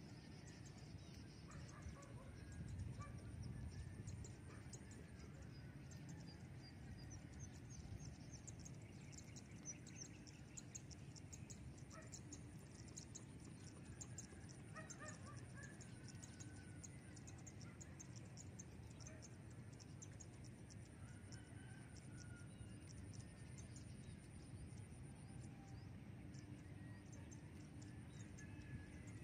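Faint open-air field ambience: a low steady wind rumble with scattered distant bird chirps and a fast, faint ticking.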